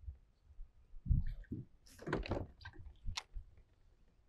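Thumps, knocks and rustling on a plastic fishing kayak as the angler shifts and stands up from the seat: low thumps about a second in, a longer scraping rustle around two seconds in, then a few sharp clicks.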